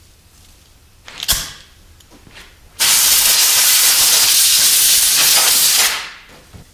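A sharp knock, then a loud, steady hiss that starts suddenly, holds for about three seconds and fades out.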